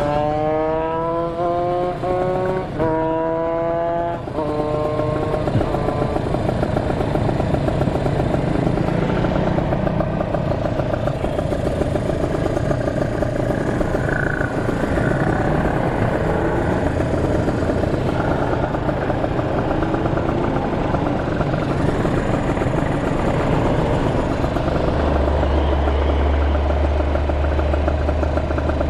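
Kawasaki Ninja 150RR two-stroke motorcycle engine accelerating hard, its pitch climbing and dropping at two quick upshifts in the first few seconds. It then runs on at speed under heavy wind and road noise, with a deep rumble joining near the end.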